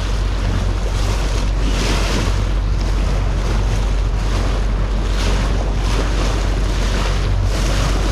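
Wind buffeting the microphone on open water, with a steady low rumble and water washing against the boat in surges every second or so.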